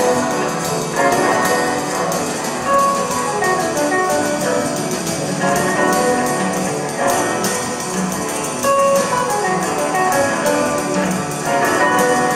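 A live band playing a jazz tune: electric guitars, saxophone and drum kit, with maracas shaken in a steady rhythm.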